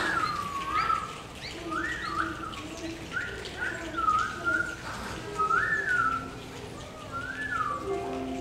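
Bird calls imitated by a choir: overlapping whistled calls sliding up and down in pitch, with lower hooting tones beneath. A held low note comes in near the end.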